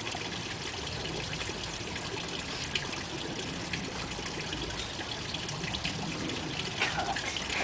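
A steady, even rushing noise with a few faint clicks scattered through it.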